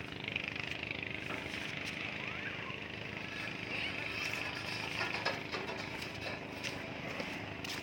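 An engine running steadily at a constant pitch, with a steady hiss over it.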